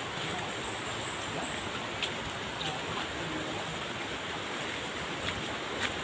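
Steady rushing of flowing water, with a few light footsteps on a dirt forest path.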